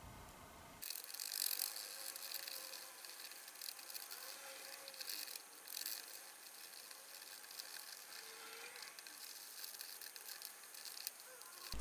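Faint, irregular scraping and scratching as a thin pick works over a small vinegar-soaked metal plate, loosening rust and dried battery-leak corrosion.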